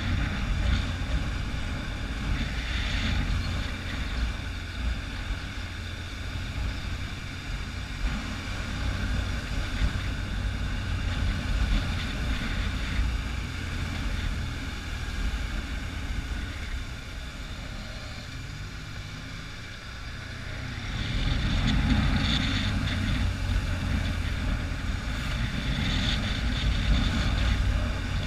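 Motorcycle engine running with wind noise on the microphone while riding. The noise eases off about two-thirds through, with a faint rising engine note, then grows louder again as the bike picks up speed.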